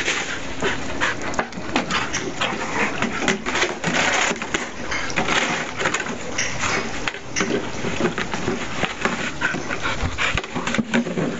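A dog making excited play noises while nosing and biting a plastic watering can, with repeated knocks and scrapes from the can.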